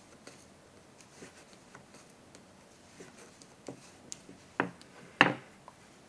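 Bamboo knitting needles clicking softly as stitches are worked in wool yarn, with two sharper knocks of the needles near the end.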